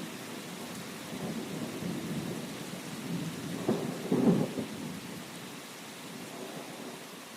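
Steady rain with low rolling thunder that swells about halfway through, then dies away as the rain hiss goes on more quietly.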